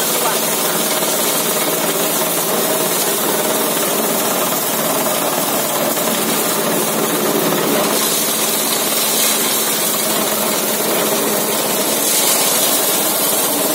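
Coffee huller driven by a small petrol engine running steadily, with a dense rattling rasp of dried coffee being hulled inside.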